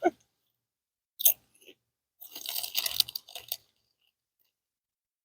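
Close-up chewing and crunching of a sub sandwich with lettuce and vegetables, in short crackly bursts with a longer spell of chewing about two seconds in.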